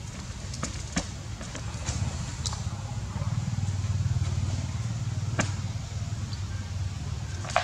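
A vehicle engine's low drone, swelling about three seconds in and easing off toward the end, with a few faint ticks.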